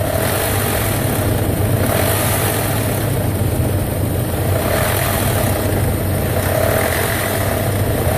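2001 Nissan Pathfinder's 3.5-litre V6 engine revved up a couple of times from idle, with a ticking from the engine that is barely heard at idle but comes through when it is revved.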